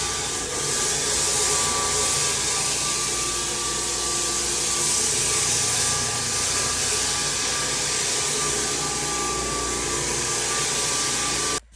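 Electric floor sander running steadily on a hardwood floor, an even whir with a steady whine. It cuts off abruptly near the end.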